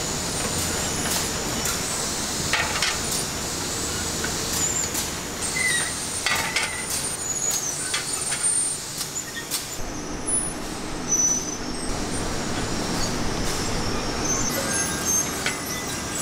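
Factory production-line noise from roller conveyors carrying coated aluminium frying pans: a steady machine hiss and hum, with scattered metallic clicks and knocks and brief high squeaks. About two-thirds of the way in the sound shifts, the high hiss dropping away and a lower hum coming up.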